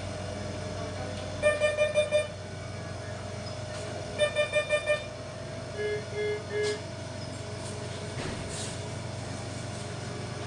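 Bedside intensive-care equipment alarms: two fast bursts of five high beeps, then a slower group of three lower beeps, over a steady electrical hum. The five-beep bursts match the standard high-priority medical alarm signal, and the three-beep group matches the medium-priority one.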